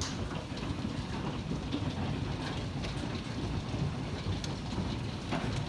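Heavy thunderstorm rain mixed with hail pelting down: a dense, steady rumble with scattered sharp ticks of hailstones striking.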